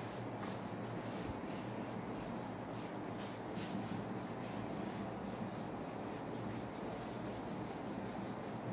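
Handheld duster wiping marker off a whiteboard: repeated rubbing strokes across the board's surface, clearest a few seconds in.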